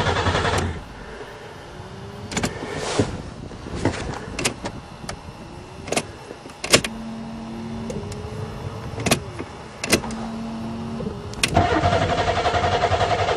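Buick Regal's 3.8 V6 being cranked by the starter, turning over in an even pulsing rhythm without firing. There is a pause of about ten seconds filled with scattered clicks and knocks, then a second long crank that also doesn't catch. This is a no-start that the owner traces to no spark.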